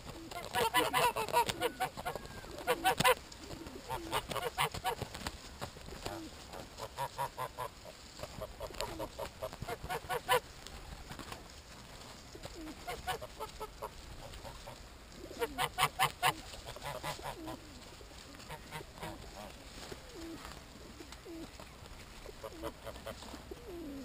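Domestic geese honking in repeated bursts of rapid calls, several bursts with short pauses between, loudest near the start and again about two-thirds of the way through.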